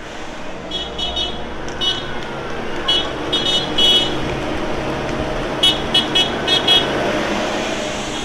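Tractor engines running steadily while horns give short, high-pitched toots in quick groups: a few about a second in, a cluster around three to four seconds in, and a rapid run of four or five about six seconds in.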